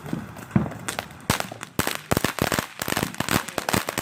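Fireworks going off: a rapid, irregular string of sharp bangs and cracks. It begins about half a second in and grows denser after about a second, several bangs a second.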